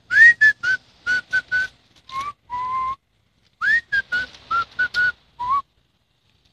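A person whistling a short tune in quick, separate notes. The first note slides up, several short notes follow, and two lower, longer notes close the phrase. The same phrase then starts again about halfway through.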